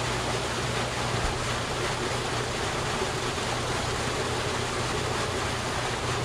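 Water rushing and churning as it pours into a concrete fish-holding channel: a steady, even rush with a low hum underneath.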